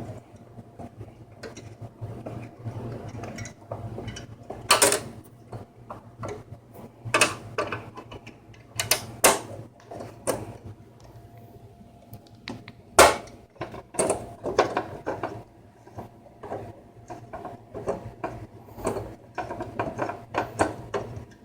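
Screwdriver driving the Dell heat sink's two retaining screws back in over the CPU: small irregular metallic clicks and knocks, with a few sharper taps.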